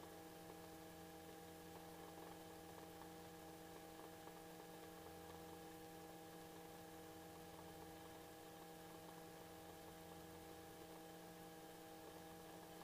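Near silence, with a faint steady electrical hum made of several even tones.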